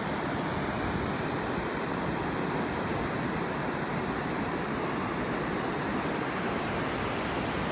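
Ocean surf breaking on a sandy beach, a steady even wash with no single crash standing out.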